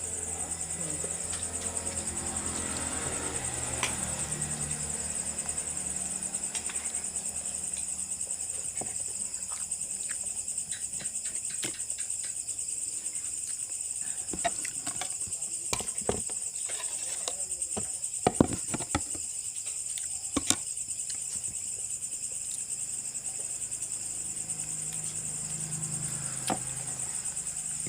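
A steady, high-pitched chorus of chirping insects, with scattered sharp clicks and knocks through the middle.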